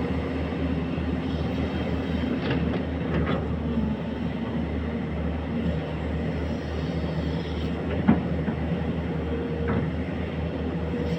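Excavator engine running steadily, with a few sharp metallic knocks.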